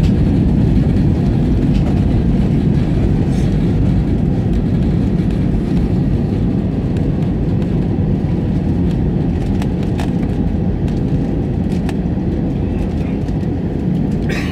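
Airbus A320 cabin noise on the landing rollout: a loud, dense low rumble from the engines and the wheels on the runway that slowly eases as the airliner decelerates, with a few light clicks.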